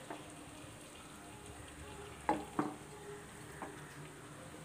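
Chicken biryani masala sizzling faintly in a pan on a low flame, with two sharp knocks a little after two seconds in and a lighter one later as cooked basmati rice is scooped onto it.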